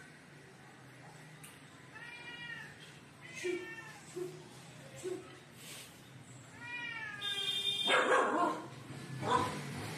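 A cat meowing a few times in drawn-out calls, with puppies barking near the end, louder than the meows.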